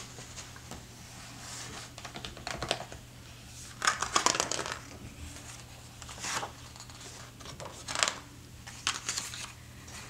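Pages of a large hardcover picture book being turned by hand: a handful of short paper rustles and small handling clicks, the loudest about four seconds in.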